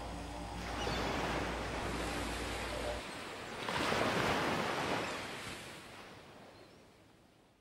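Rushing surf of ocean waves, swelling a second in and more strongly around four seconds, then fading away near the end.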